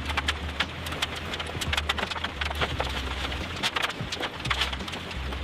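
Construction clatter: dense, irregular knocks and cracks of wood and debris being worked, several a second, over a low steady rumble.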